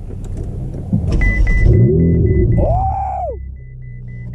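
Ferrari 488 GTB's 3.9-litre twin-turbo V8 starting up about a second in, flaring in revs and falling back to a steady low idle. A string of short, high electronic beeps sounds alongside.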